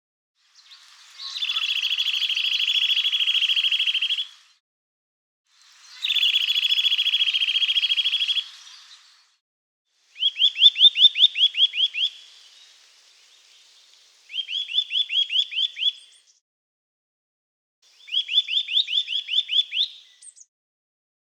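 Eurasian nuthatch singing: two long, very fast trills, then three shorter series of clear rising whistled 'wuit' notes at about five a second.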